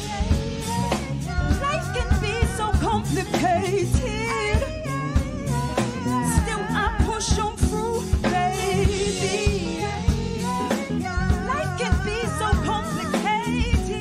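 Live soul band playing: a woman singing with a strongly wavering pitch over electric bass and drum kit.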